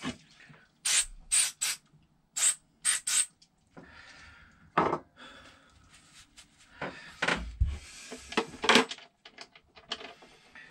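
Hands and tools working among heavy battery cables and terminals: a run of short, sharp scrapes and clicks, with a couple of dull knocks in the middle.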